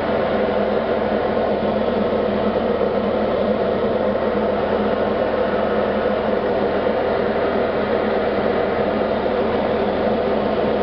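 Single-engine Diamond light aircraft's piston engine and propeller running steadily in cruise flight, heard from inside the cockpit.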